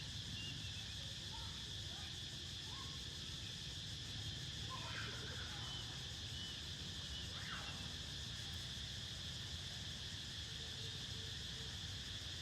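Steady chorus of insects, a constant high-pitched buzzing, over a low steady rumble.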